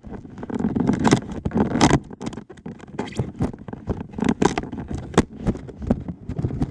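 Packaging being opened by hand: irregular scraping, rustling and sharp knocks of cardboard and wrapping being handled and torn.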